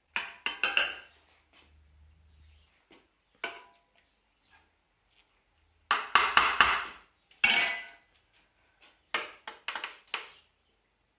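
Two metal forks scraping and clinking against a metal baking tray as they spread a chunky cod and pepper filling, in several short clusters of scrapes and clinks with quiet gaps between.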